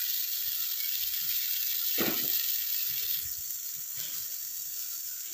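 Pork pieces sizzling in a stainless steel wok with water just added, a steady hiss that eases a little about three seconds in.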